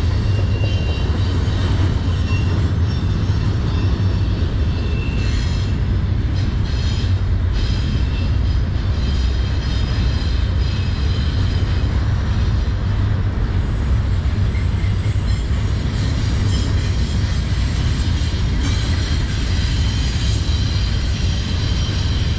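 Double-stack intermodal container cars of a freight train rolling past: a steady, loud rumble of wheels on rail with high-pitched wheel squeal over it, strongest in the first few seconds and again near the end.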